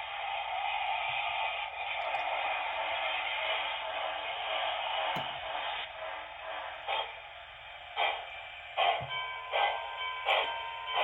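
Model steam locomotive sound decoder of an HO scale PRR T1 duplex, heard through the model's small speaker: a steady steam hiss, then, from about 7 seconds in, exhaust chuffs that come quicker and quicker as the engine gets under way.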